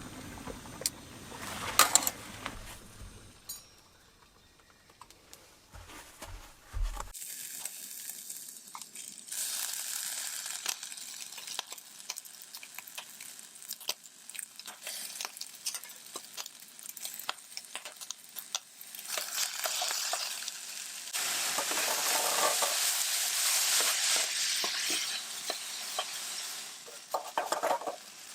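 Food sizzling in a frying pan, with clinks and scrapes of a utensil against the pan. The sizzling sets in about seven seconds in and grows louder about two-thirds of the way through.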